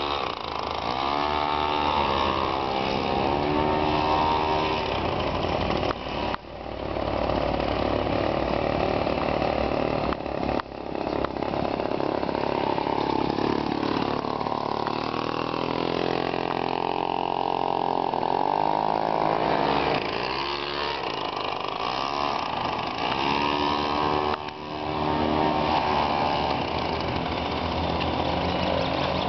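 Small go-kart engine running, its pitch rising and falling again and again as the kart speeds up and slows around the track.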